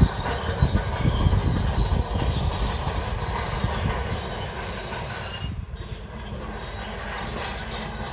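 Shantui DH17 crawler bulldozer at work, its steel tracks clanking and squealing over a heavy running noise, with a sharp knock right at the start and irregular knocks through the first few seconds.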